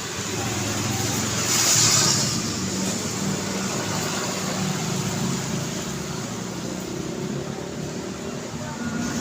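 City street traffic: a steady hum of car and motorcycle engines. About two seconds in, a vehicle passes close with a brief rising and fading rush.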